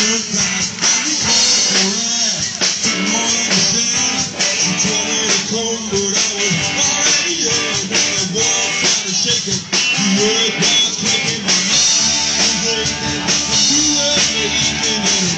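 Live rock band playing loud and continuously: electric guitar, drum kit with crashing cymbals, and a voice singing.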